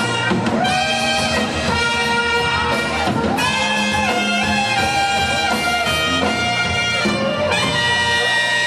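Dance band playing, with saxophones and trumpets to the fore in long held chords; a new chord comes in near the end.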